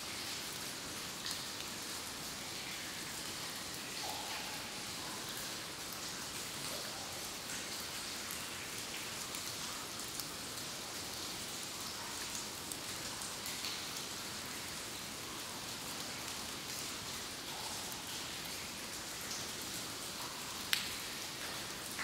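Water dripping in a cave: single drops land irregularly, a few seconds apart, over a steady hiss, with one sharper drop near the end.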